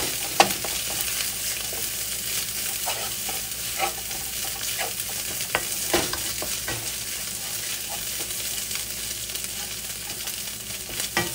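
Egg, garlic and crab meat sizzling in a hot wok while a wooden spatula stirs and scrapes through them, with a few sharp taps of the spatula against the pan.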